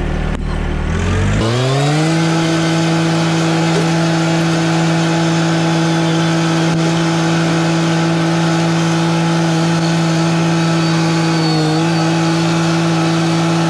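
John Deere compact tractor's diesel engine speeding up from idle about a second in, then running steady at high revs, with a brief dip in pitch near the end as the front loader bucket pushes into a pile of wood chips.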